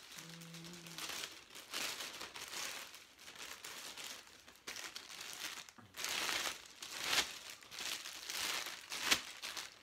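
Clear plastic sleeve crinkling and rustling in repeated bursts as a fishing rod is slid out of it by hand. A sharp click comes near the end.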